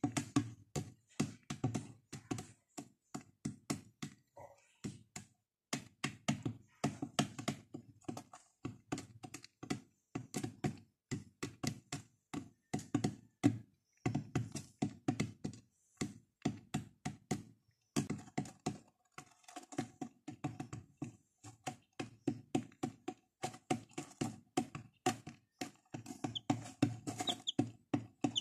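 Chicks pecking at crumbled feed on the plastic floor of a box: rapid, irregular tapping, with a few high peeps near the end.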